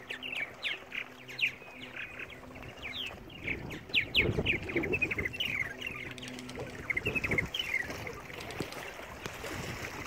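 Purple martins chirping: many quick, descending chirps. Wind buffets the microphone, and a low motor hum comes and goes.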